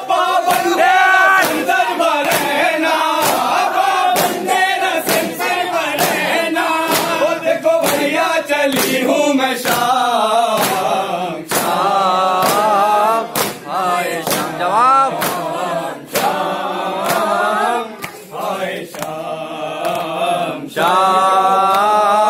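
A group of men chanting a noha, a Shia lament, together, with rhythmic chest-beating (matam) slaps landing about one and a half times a second.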